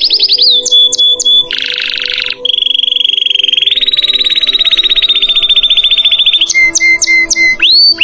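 Canary (Belgian canary, Portuguese canário belga) singing. It goes from a fast trill into a short harsh, buzzy phrase about two seconds in, then a long rolling trill that steps up in pitch midway. Near the end come a few short chips and rising whistled notes.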